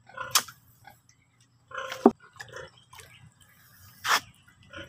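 Water splashing and dripping as an object is dipped into a shallow basin of water, in a few separate short splashes.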